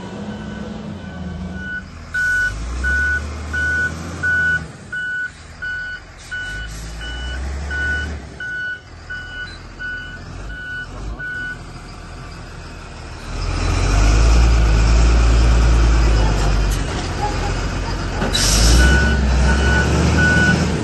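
Heavy machinery's engine running with its reversing alarm beeping about twice a second; the beeping stops about halfway through as the engine revs up and works hard, then starts again near the end after a short hiss.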